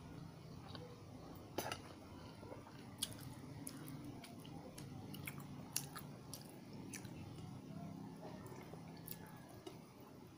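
Chewing a mouthful of pancit canton instant noodles, with scattered short sharp clicks and smacks, over a steady low hum.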